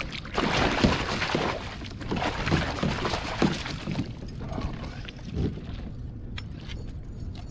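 Water splashing hard at the side of a kayak as a pike thrashes in the landing net, for about four seconds, then settling to quieter sloshing with a few light knocks.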